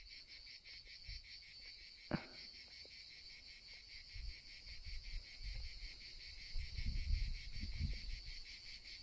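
Cicadas singing in a steady, pulsing chorus. A single sharp click about two seconds in and low bumps in the second half come from the trail camera being held and its buttons pressed.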